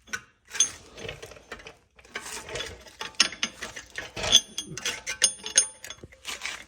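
Hand tools and metal parts clicking and clanking irregularly while working on a car's wheel hub, with a few short metallic rings in the middle of the stretch.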